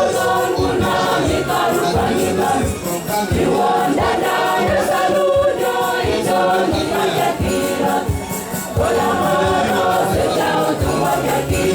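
Church choir singing a hymn in many voices over a steady low beat of about two strokes a second.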